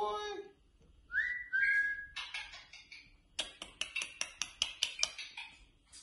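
Galah (rose-breasted cockatoo) giving two short whistles, the first rising and the second held steady, followed by a harsh scratchy call. A run of quick sharp clicks, about six a second, follows.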